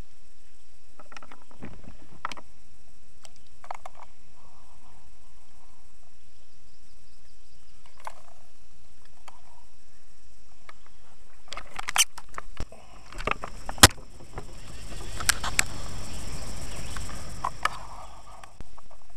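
Close clicks, clinks and knocks of fishing gear being handled in a kayak, with a burst of louder knocks about twelve seconds in, followed by a few seconds of low rushing handling noise on the microphone.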